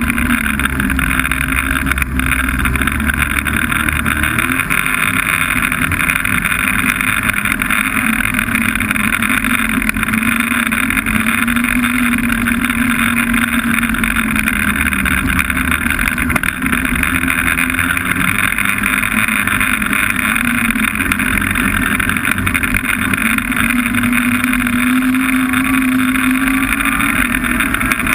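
Snowmobile engine running steadily under way, its pitch drifting a little up and down.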